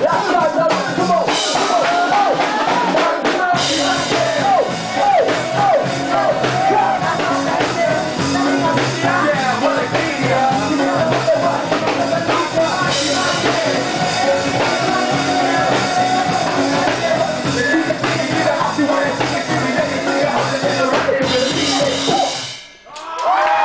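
Live ska-punk band playing loud, with a man and a woman singing into microphones over drum kit and amplified instruments. The sound drops out briefly near the end, then comes back.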